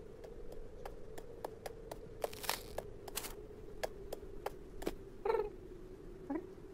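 Cartoon cat sound effects: soft, light footstep clicks as the cat pads along, a couple of brief breathy puffs, then two short questioning cat vocal noises near the end, one of them rising. A faint steady hum lies underneath.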